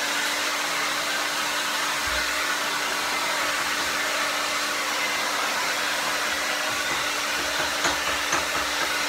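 Handheld hair dryer running steadily, a constant rush of air with a steady hum under it, blowing on a dog's damp coat.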